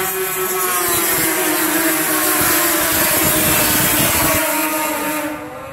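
Racing snowmobile's two-stroke engine running at high revs on the ice oval, a steady high buzz that fades away sharply near the end.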